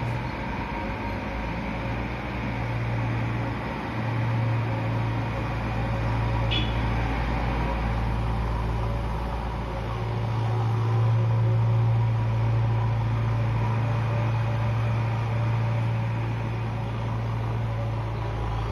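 Heavy diesel engines running steadily: a loaded Tata SE 1613 tipper lorry manoeuvring and a JCB backhoe loader working. The engine drone grows louder about ten seconds in.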